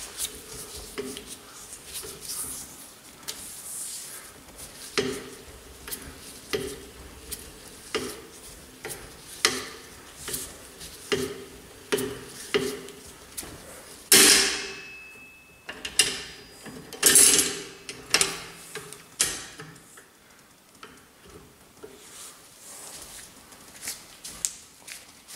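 Metallic clicks and clanks from a homemade steel rod bender being worked with a ratchet wrench, each knock ringing briefly. A louder scraping burst about 14 s in, followed by a few more sharp clanks.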